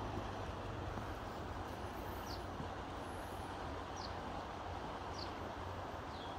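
Steady rush of a shallow mountain river running over riffles. A bird gives a short, high, downward chirp four times.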